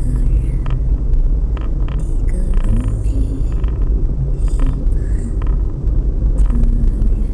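A moving car's engine and tyre rumble heard from inside the cabin, low and steady, with a few light clicks.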